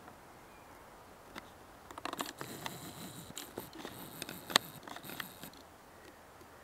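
Camera handling noise: rustling and clicking as the camcorder is moved, starting about two seconds in and lasting about three seconds, with one sharp click near the end.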